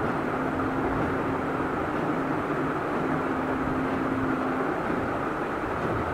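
Steady rushing background noise, with a faint held hum that sounds twice for a second or two and fades.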